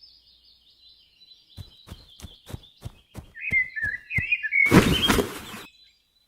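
Birds chirping, with quick footsteps at about three a second for a second and a half, then a loud, noisy crash lasting about a second, like someone colliding or falling.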